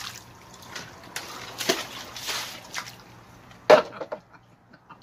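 Water poured from a plastic tub splashing over a person and sloshing in the water-filled crate he sits in, in several bursts, with a short, sharp, loud sound just before four seconds.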